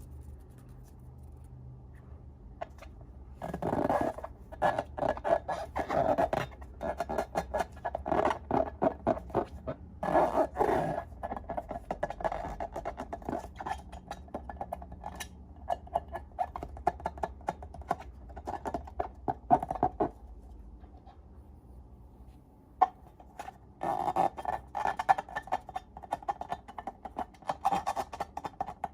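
Slime being squeezed and worked by hand, a dense run of wet clicks and small pops that stops about twenty seconds in and starts again about three seconds later.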